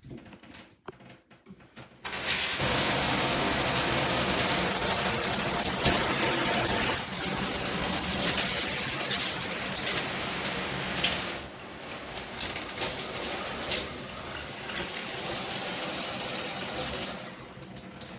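Handheld shower head spraying water. The spray starts about two seconds in, changes strength a couple of times, and eases off near the end.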